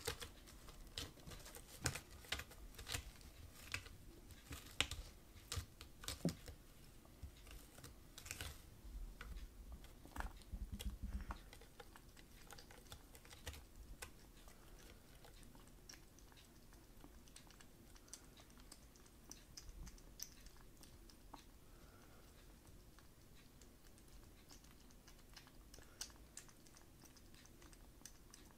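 Kittens batting a toy mouse on a string and pawing at a sisal cat-tree post: a quick patter of small taps and scratches that thins out after about twelve seconds. Then faint ticking from a kitten lapping water from a bowl.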